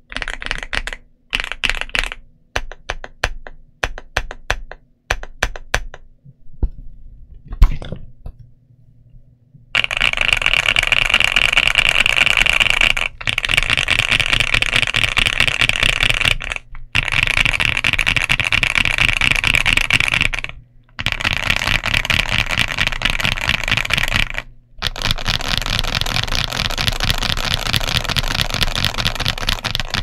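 Ajazz AC100 mechanical keyboard with Butter Ice Cream linear switches and doubleshot PBT Cherry-profile keycaps: single key presses one at a time for the first few seconds, with one louder knock near eight seconds. After a short lull, fast continuous typing from about ten seconds in, in runs broken by brief pauses.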